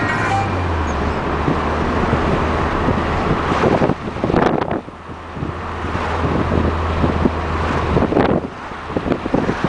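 Car driving along a street, heard from inside: a steady low drone of engine and tyres, with wind buffeting the microphone in gusts, strongest about four seconds in and again near the end.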